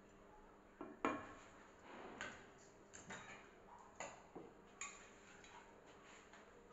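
Metal spoon stirring thick vegetable soup in a metal kadai, knocking and clinking against the pan about eight times, the loudest about a second in, the knocks stopping after about five seconds.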